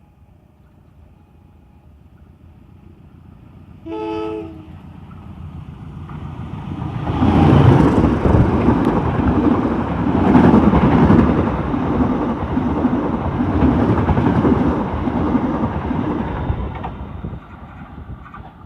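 A train passing: one short horn blast about four seconds in, then the train comes up and rushes past loudly for about ten seconds, wheels clattering over the rails, before fading.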